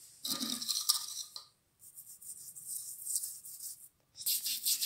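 An old toothbrush scrubbing the plastic casing of a mixer grinder: scratchy, high rasping in irregular strokes, densest near the end.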